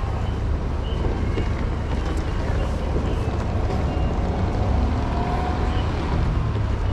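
Outdoor street ambience: a steady low rumble of traffic and wind on the microphone, with faint voices and footsteps of passers-by.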